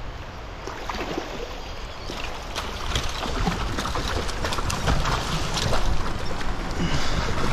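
A hooked bluefish thrashing and splashing at the surface in shallow water against the rocks, the splashing growing louder from about two and a half seconds in.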